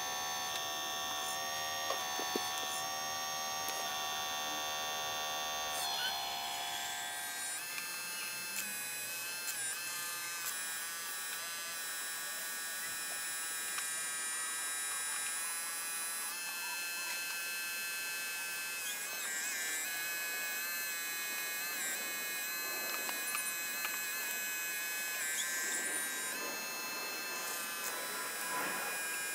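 Hydraulic pump motor of a radio-controlled model excavator whining as the excavator works, its pitch shifting several times as the boom swings and the bucket digs.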